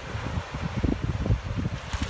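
Wind buffeting the microphone in irregular low rumbles, over the hiss of shallow surf washing on sand. Near the end a brighter rush of noise as the dog starts splashing out through the water.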